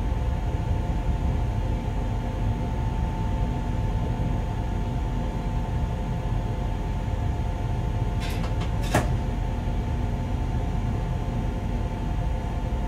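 Bombardier Traxx class 186 electric locomotive rolling along the track, heard from inside its cab: a steady low rumble under a constant two-tone electrical hum. A quick group of three clicks comes about eight to nine seconds in, the last the loudest.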